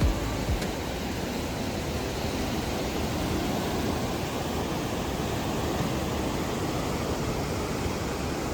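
Steady, even rush of a fast-flowing mountain river.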